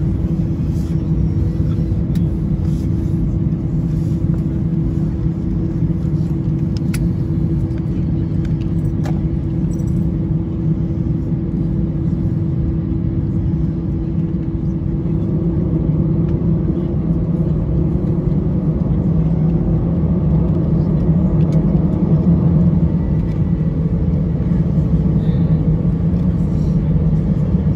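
Cabin noise of an easyJet Airbus A320-family airliner taxiing after landing: the engines at idle and the airframe rolling over the taxiway make a steady low rumble, heard from inside the cabin. A faint steady hum fades out about halfway through, and the rumble swells slightly about two-thirds of the way in.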